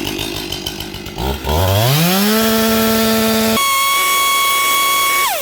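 A chainsaw runs for about the first second. Then a clean electronic tone sweeps smoothly upward and holds, jumps abruptly to a higher steady tone, and glides down near the end.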